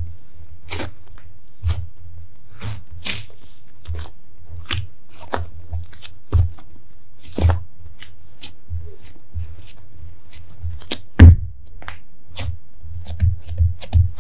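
Hands working a soft ball of yeasted bread dough on a silicone baking mat: irregular soft pats, taps and slaps as the dough is folded, tucked and pressed down, with one heavier thump about eleven seconds in. A steady low hum runs underneath.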